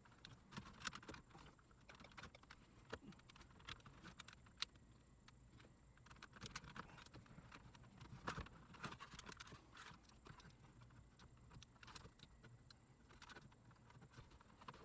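Faint, irregular clicks and taps of a hand tool working on the small bolts behind a truck's radio bezel, with a few sharper knocks.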